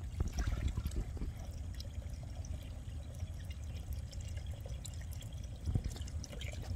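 Shallow water pouring and trickling through a small drain channel, with a few short splashes in the first second or so and again near the end.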